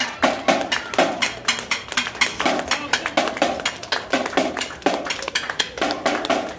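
Small marching pep band playing on the move: a Yamaha marching snare drum keeps a quick, steady beat under saxophone and flute.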